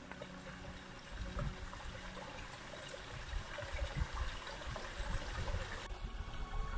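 A small stream of rainwater running through the gorge bed: a steady rush of water that stops suddenly near the end.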